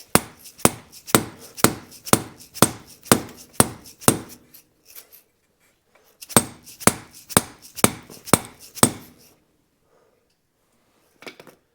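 Small dead-blow hammer striking a Polaris Ranger 800 CV axle to drive it into place, in two runs of steady blows about two a second with a short pause between. The axle is not seating under the blows; the hammer is too light for the job.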